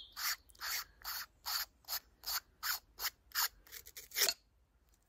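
Wildcat Whisper .22 rimfire moderator's end cap being unscrewed by hand: about a dozen short rubbing strokes, roughly three a second, as it is turned in repeated twists, stopping after about four seconds. The threads are fouled with .22 residue.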